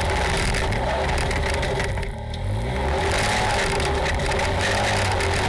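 Polaris RZR side-by-side's engine running under throttle on a rough dirt trail, heard from inside the open cab. About two seconds in the engine briefly drops off as the throttle eases, then comes back up.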